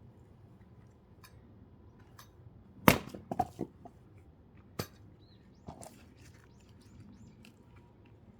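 A thick firewood log being split: one loud, sharp blow about three seconds in, a quick patter of lighter knocks right after it, and another single knock about two seconds later. Birds chirp faintly in the background.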